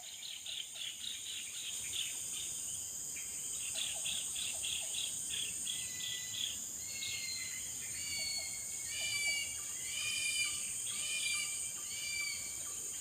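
Outdoor ambience: a steady high insect buzz, with a bird calling over it in series of short repeated notes that become clearer, about one call a second, in the second half.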